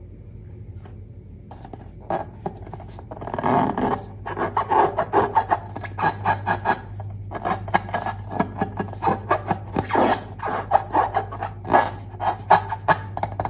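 Hands squishing and kneading glossy slime, a dense run of sticky crackles and small pops that starts about two seconds in.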